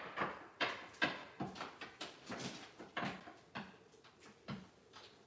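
Irregular light clicks and taps of broken ceramic tile pieces knocking against each other as they are set and pressed into a backsplash mosaic, about a dozen, thinning toward the end.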